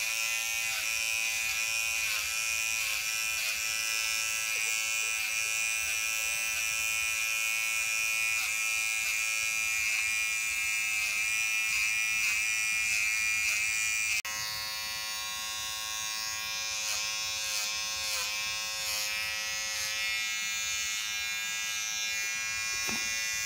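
Small cordless electric pet hair trimmer buzzing steadily while trimming the fur between a cat's paw pads, its pitch dipping briefly now and then. About 14 seconds in, the hum drops a little in level and changes tone.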